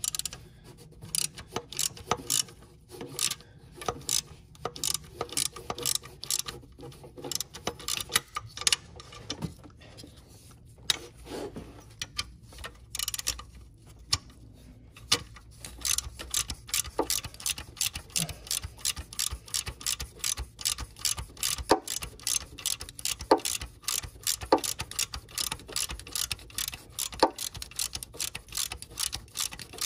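A socket ratchet clicking as it is worked in short strokes to turn a bolt. The clicks are irregular at first and become quicker and steadier from about halfway.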